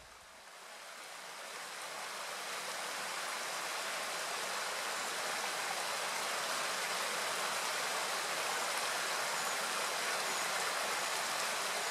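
Mountain stream rushing over rocks and small cascades: a steady flowing-water sound that fades in over the first few seconds.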